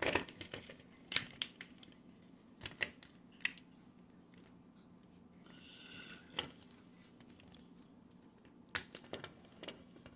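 Scattered clicks and light taps of a cardboard-and-plastic toy box being handled in the hands, with a brief soft rustle about six seconds in.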